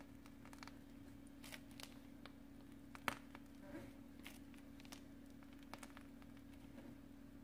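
Near silence: a steady low hum with faint scattered clicks and rustles of handling while buttercream is piped from a plastic piping bag. The loudest is a single sharp click about three seconds in.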